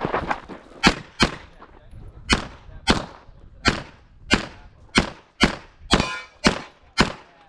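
Handgun shots fired rapidly during a USPSA stage: about a dozen sharp reports, mostly in quick pairs about half a second apart. One shot about six seconds in is followed by a short ringing tone.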